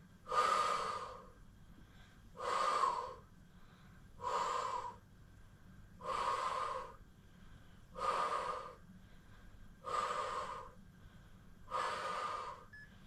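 A woman breathing hard in a steady rhythm under exertion, one forceful breath about every two seconds, seven in all, while holding a single-leg bridge.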